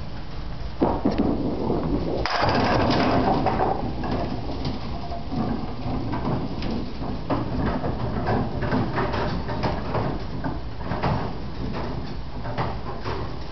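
Candlepin bowling: a ball rumbling down the lane and crashing into the pins just after two seconds, followed by scattered knocks and clatter of pins and balls.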